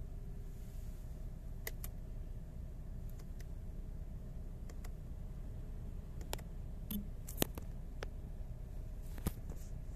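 A few soft, sharp clicks, about seven spread irregularly, over a steady low hum inside a parked car's cabin.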